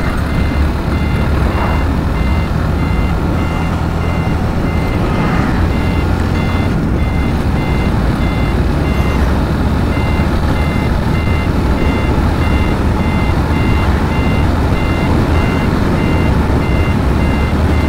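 Motorcycle riding along a highway: a steady heavy rush of wind on the microphone with the engine running underneath. A repeating electronic beep sounds over it through most of the stretch.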